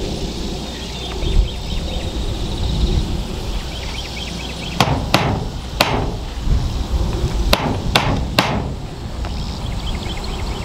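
Six hammer blows in two quick sets of three, the sets about three seconds apart, as roofing transition metal is fastened down.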